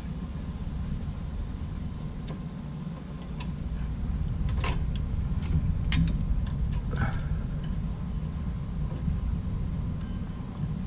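A few light clicks and knocks of hand work on mower parts, most of them between about two and seven seconds in, over a steady low rumble.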